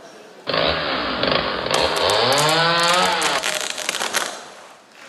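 Chainsaw running, starting suddenly about half a second in, revving up and back down, then fading out near the end.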